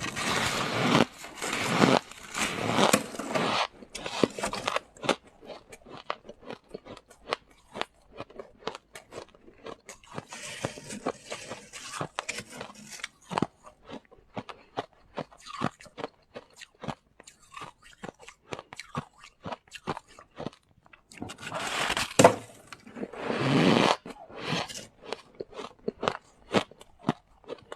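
Freezer frost being bitten and chewed close to the microphone: loud drawn-out crunches in the first few seconds and again about 22 seconds in, with a long run of small crisp crunching clicks of chewing in between.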